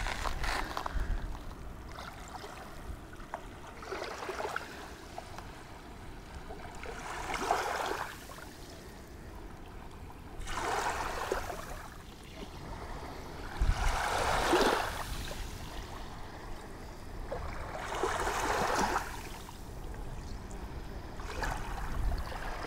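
Small sea waves washing up over a shore of fine shells and pebbles. There is a soft swell of splash and fizz about every three to four seconds, with a quieter wash between.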